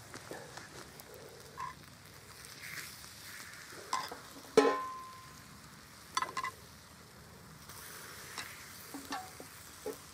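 Bacon sizzling in a pan over campfire coals, with a knife clicking and scraping against the pan as the slices are moved. About halfway through there is one sharp metallic clink that rings briefly, the loudest sound, followed by a few quicker knocks.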